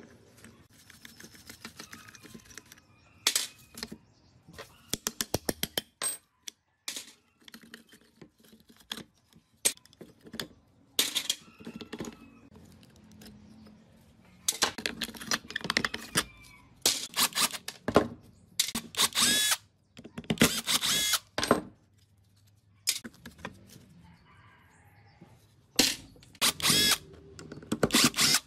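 A wrench and rusty metal saw parts clink and rattle as they are worked loose. In the second half a cordless drill driver runs in several short bursts, whining as it backs out screws.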